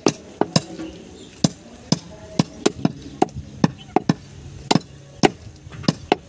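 A broad-bladed butcher's knife chopping goat meat on a wooden stump block: a run of sharp chops, about three a second and unevenly spaced.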